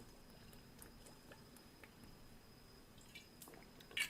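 Near silence: room tone with a faint steady high-pitched whine, scattered small clicks and a brief louder click just before the end.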